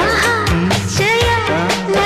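A film-style song playing: a singer's voice gliding over a regular drum beat and a steady bass line.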